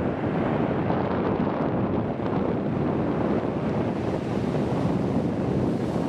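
Sea surf breaking and washing steadily over a shingle beach, with wind buffeting the microphone.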